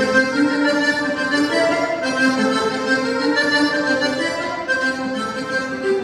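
Accordion playing a cumbia melody in sustained notes and chords, moving from note to note without a break.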